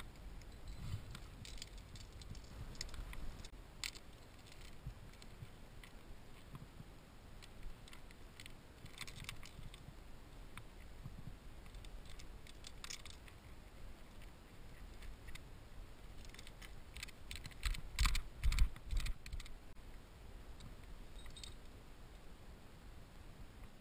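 Scattered clicks, scrapes and light clinks of a trad climber moving on rock: carabiners and gear racked on the harness knocking together, and hands and shoes scuffing the rock, picked up close by a body-worn camera. A denser cluster of knocks and thuds about eighteen seconds in is the loudest.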